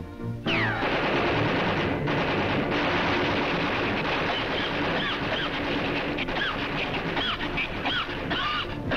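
Cartoon sound effect of a water-cooled, belt-fed machine gun firing one long unbroken burst, starting about half a second in. Short whistling glides ride over the firing: one falling whistle near the start and several more in the second half.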